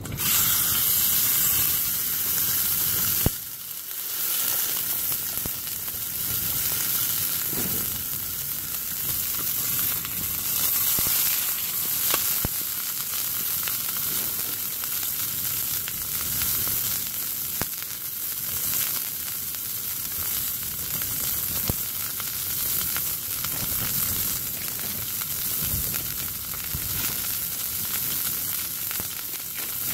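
Raw steak dropped into hot oil in a frying pan: a sudden loud sizzle as it hits, easing after about three seconds into a steady sizzle with scattered crackles.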